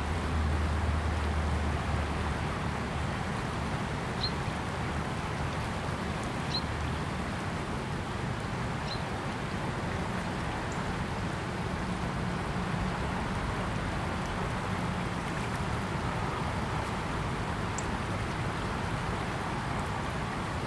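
Steady rushing of a fast, shallow river running over its bed. A low rumble sits under it for the first two seconds, and a few short, faint high peeps come through around the middle.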